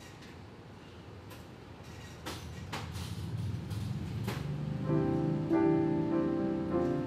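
Several sharp clicks as the touchscreen buttons of a kiosk are pressed, over a low swell that grows louder. About five seconds in, soft piano music comes in with sustained chords.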